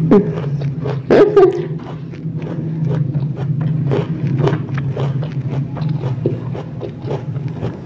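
Close-up chewing of crunchy raw ambarella (kedondong) fruit: a quick run of crisp crunches over a steady low hum, with a short louder voiced murmur about a second in.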